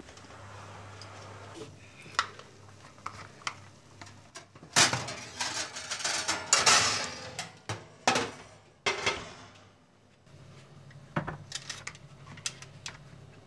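Dishes and cutlery being handled in a kitchen: scattered clinks and knocks of crockery and utensils, with a few seconds of louder, denser clattering and scraping about five seconds in.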